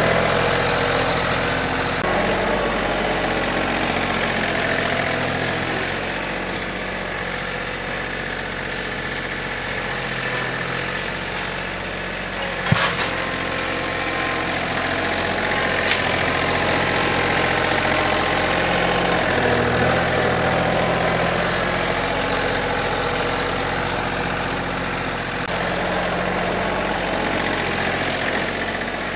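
Compact John Deere tractor's diesel engine running as it carries a log on loader pallet forks, the revs rising and falling a few times. A single sharp knock about halfway through.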